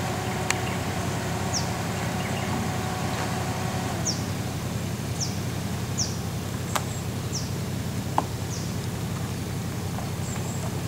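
Suzuki Jimny's engine running low and steady as it crawls through a deep rutted dirt track, with a faint hum that drops away about four seconds in and a few sharp clicks. Short, high falling chirps repeat about once a second.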